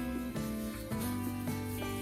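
Background music: sustained notes that change about every half second.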